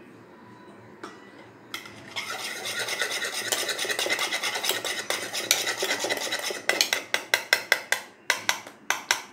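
A wire whisk beating thin cake batter fast in a bowl, starting about two seconds in as dense rapid scraping strokes. In the last few seconds the strokes become separate sharp clicks of the whisk against the bowl.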